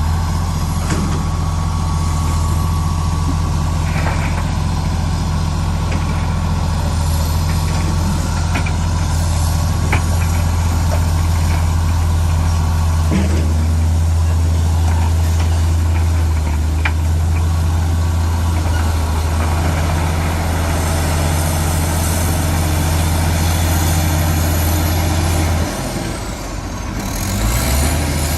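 Crawler bulldozer's diesel engine running steadily, with occasional sharp metallic clicks. Near the end the engine note drops, then rises again as the engine picks back up.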